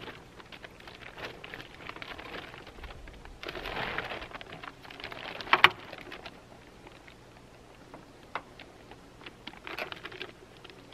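A heavy-duty plastic tarp rustling and crinkling in uneven spells as it is pulled over the roof of a van, with one sharp clack a little past halfway and a few lighter clicks.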